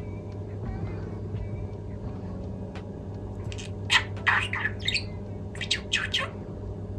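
Pet budgerigar chattering: a soft warble in the first second or so, then a run of loud, scratchy chirps and squawks about halfway through.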